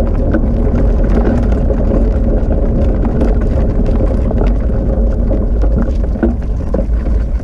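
Steady rolling rumble of a dog-pulled training cart running on a wet road, with scattered clicks and rattles from the rig.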